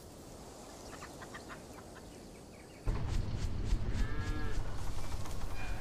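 A cow moos once, a short call that rises and falls about four seconds in, over a loud low rumble that starts suddenly about three seconds in.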